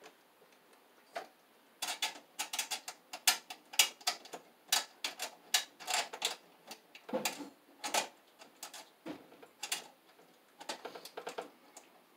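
Rapid, irregular clicks and taps of hands working a cable and its fittings into the bottom of an open electrical breaker panel, starting about two seconds in and coming in clusters until near the end.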